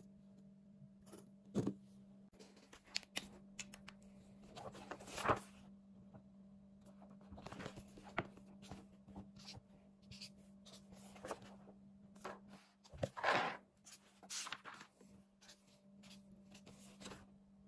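Pages of a thick paperback question book being handled and turned: irregular short rustles and swishes of paper, the biggest about five and thirteen seconds in, over a steady low hum.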